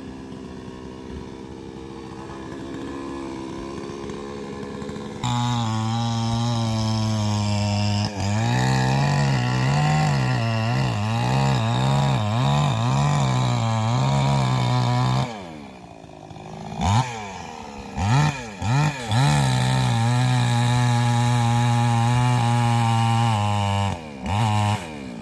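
Chainsaw idling, then opened to full throttle about five seconds in; its pitch dips and recovers over and over as it loads up cutting into the tree. It drops back to idle, is revved in a few short blips, runs steadily at full speed again and eases off near the end.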